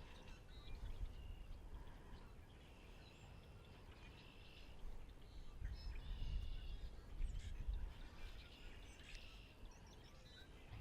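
Wild birds chirping and singing in short repeated phrases, with a low rumbling noise that swells about halfway through.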